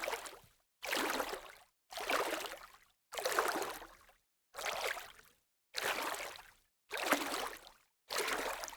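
Water sound cut into short bursts, about one a second: each burst of rushing splash noise starts suddenly and fades within a second, then drops to dead silence before the next.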